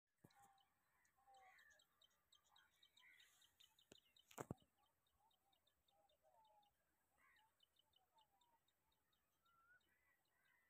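Faint birdsong from several birds, with repeated short high chirps and scattered whistled notes. A couple of sharp knocks about four seconds in stand out as the loudest sounds.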